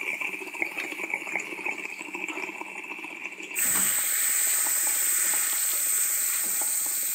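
A dab being taken from a glass recycler dab rig. First the concentrate crackles and sizzles on the hot quartz banger with water bubbling in the rig. About three and a half seconds in the carb cap goes on and the hit is pulled through the water, giving a louder, steady airy hiss.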